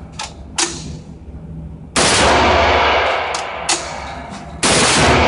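Mauser Schnellfeuer 712 broomhandle machine pistol firing two bursts of full-auto fire, the first lasting just over a second and the second starting near the end, echoing in an indoor range. A few fainter single shots come before and between the bursts.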